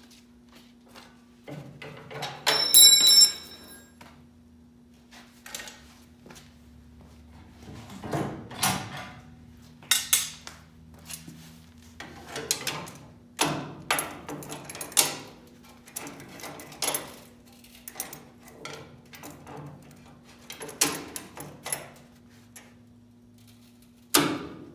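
Scattered knocks, clicks and rustles of hands working on a steel car frame rail: a paper template being handled, a tape measure, and locking pliers being clamped onto the rail, with a sharp knock near the end. A short metallic ring sounds about three seconds in, over a steady low hum.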